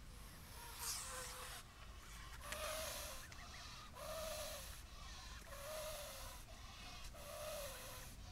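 Canada goose hissing five times, each breathy hiss lasting well under a second with a faint nasal tone beneath it, about a second and a half apart: a defensive threat display.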